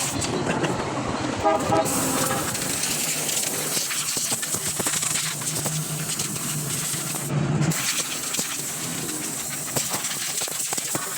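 Loud steady hiss over a low hum, with a short horn toot about one and a half seconds in.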